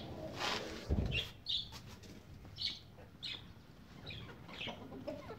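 Short, high bird chirps repeating every half second to a second. A rustle and a low thump come about a second in.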